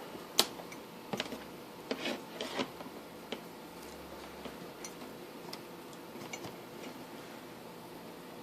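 Scattered light clicks and taps of small hardware and cables being handled: a sharp click about half a second in, a cluster of clicks between one and three seconds, then fainter occasional ticks.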